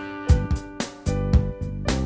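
Instrumental country music with guitar over a steady beat, about two beats a second, and no singing.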